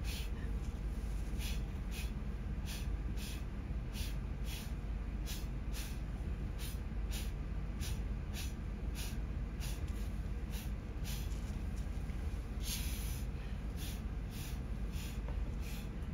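Short puffs of breath blown through a drinking straw, about two a second, pushing wet black India ink across paper, with one longer blow near the end.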